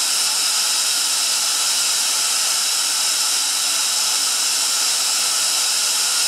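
Atlas Copco ZR90 VSD FF oil-free two-stage rotary screw air compressor running steadily: an even, loud hiss with a few steady high tones in it.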